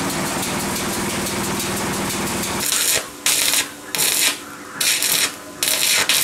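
A steady machine hum for the first couple of seconds. Then arc welding takes over: steel strips are tack-welded onto a galvanized steel sheet in about five short crackling bursts of roughly half a second each, with brief pauses between.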